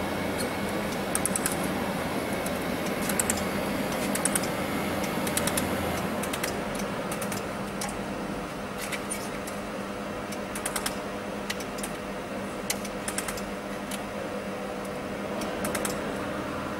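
Pulsed laser welder firing on stainless steel: sharp ticking snaps in short clusters, about one cluster a second, over the steady hum of the machine running.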